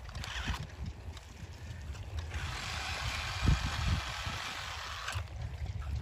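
Toy RC rock crawler's wheels churning in wet mud and water, a hissing, sloshing sound that starts about two seconds in and stops about three seconds later.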